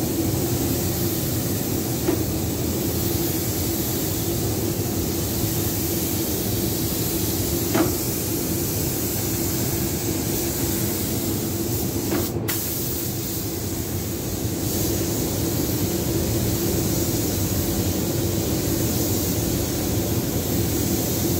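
Air-fed automotive paint spray gun hissing steadily as it sprays paint onto car body panels, over a steady low hum, with a few faint clicks.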